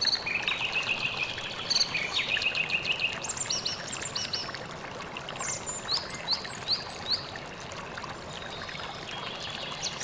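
Small birds chirping over the steady rush of a waterfall and water trickling over rock. Twice there is a run of quick, downward-sliding whistled notes.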